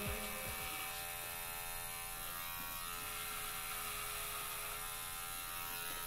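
Electric hair clippers buzzing steadily while trimming a thick moustache and beard.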